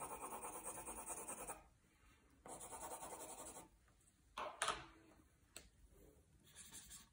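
Pencil shading lightly on paper in two spells of even rubbing strokes, then a light knock and a smaller click, and a brief stroke near the end.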